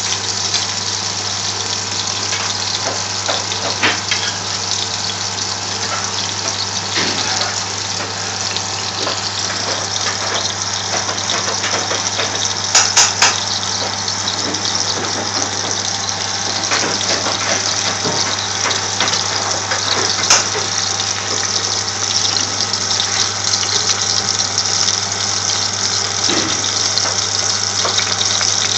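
Lamb mince patties sizzling in shallow vegetable oil in a frying pan: a steady hiss with many small crackles and a couple of sharper pops, over a steady low hum.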